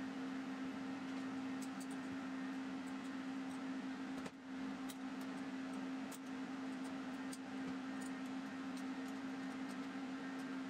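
MIG welding on a steel engine-mount bracket: a steady electrical hum under an even hiss, with scattered sharp crackles.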